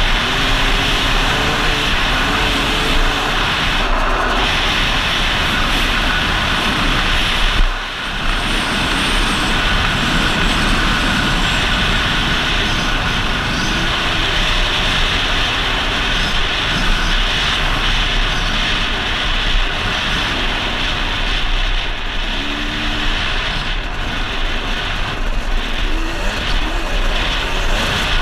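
KTM 250 XC-W two-stroke engine being ridden on a dirt trail, its revs rising and falling with the throttle, with wind rushing over the helmet-camera microphone. The sound drops briefly about eight seconds in.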